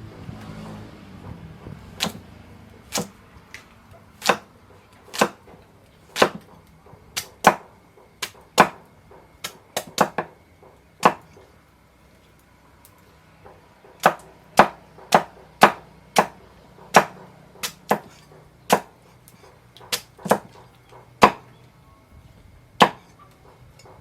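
A knife chopping food on a wooden cutting board: single sharp strikes at an uneven pace of about one a second, pausing for a few seconds midway.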